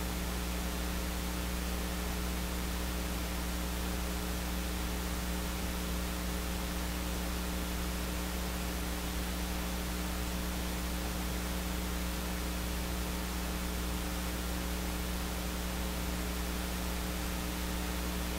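Steady electrical mains hum with its overtones under an even hiss, unchanging throughout, from the hall's amplified sound system before the music starts.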